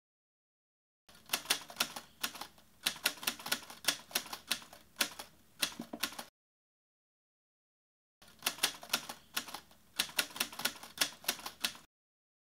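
Typewriter keystroke sound effect, several keystrokes a second, in two runs of about five and about four seconds with a dead-silent gap between, matching text being typed out on screen.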